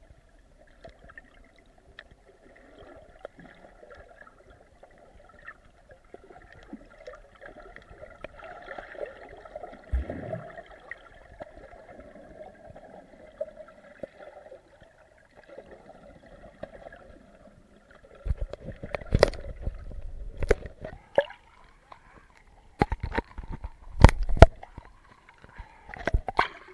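Muffled underwater sound heard through a submerged camera housing in a rock pool: a faint, steady wash of moving water. From about two-thirds of the way in come bursts of loud sharp knocks and splashes as the camera moves just below the surface.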